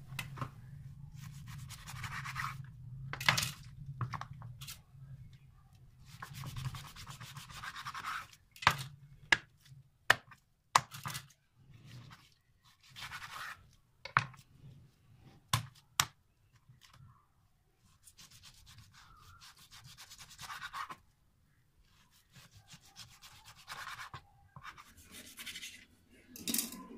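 Knife slicing raw meat into thin pasanda slices on a wooden cutting board: stretches of rasping back-and-forth strokes with sharp knocks of the blade on the board. A low steady hum runs underneath and stops about two-thirds of the way through.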